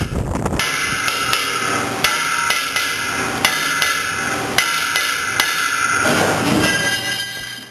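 Hand hammer blows on a stainless-steel (SUS304) screw conveyor flight, with a second hammer held against it, straightening the flight after welding. Sharp metallic knocks come about twice a second over steady background noise.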